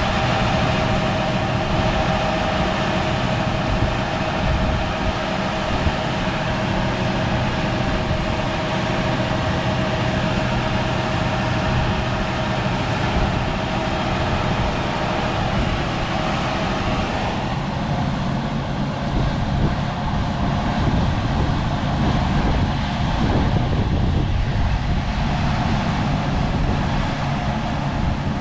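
Large diesel harvest machinery running steadily, a low engine drone under a broad hiss. About two-thirds of the way through, the higher hiss eases off and the low tone shifts slightly in pitch.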